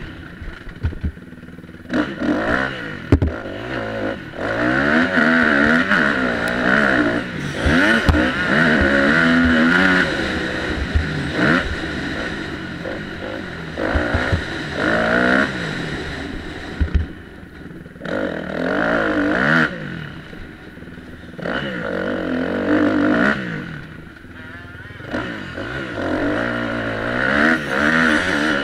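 Dirt bike engine revving hard, rising and dropping over and over as the throttle is opened and shut through the track's corners and jumps, with scattered knocks from the bumps, heard close up from an onboard camera.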